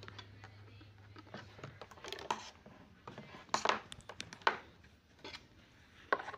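Scattered light clicks and taps as multimeter test probes and metal tweezers are handled and set down on a tabletop, the loudest knocks a little after three and a half seconds and just after six seconds. A low hum stops about a second and a half in.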